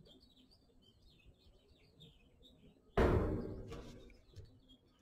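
Birds chirping faintly. About three seconds in, a sudden knock with a short fading ring as a stemmed beer glass is set down on the tabletop.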